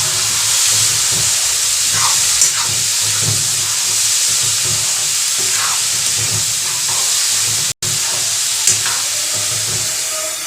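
Potatoes, peas and tomato sizzling in hot oil in a kadhai as they are fried with salt and stirred, a spoon scraping the pan now and then. The sound drops out for an instant about three-quarters of the way in.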